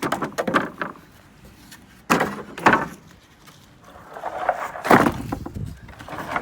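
Timber formwork being pulled out and handled: several sharp wooden knocks and scrapes, with loud strokes at the start, about two seconds in and near five seconds in.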